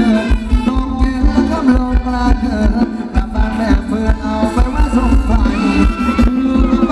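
A live band playing Thai ramwong (Phetchaburi ramwong) dance music, with a steady drum beat over heavy bass and a melody on top. A few notes are held near the end.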